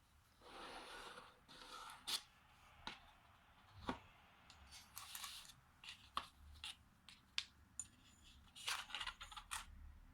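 Faint handling noises: irregular light clicks and taps with short scraping swishes between them, a quick cluster of clicks near the end.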